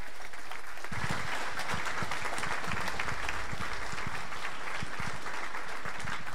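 Audience applauding, the clapping thickening about a second in.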